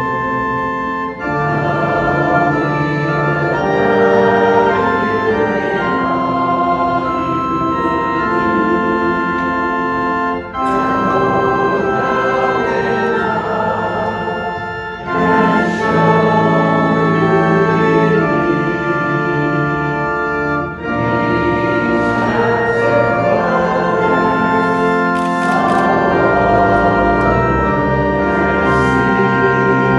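Church organ playing slow music in held chords, with brief breaks between phrases about 1, 10, 15 and 21 seconds in.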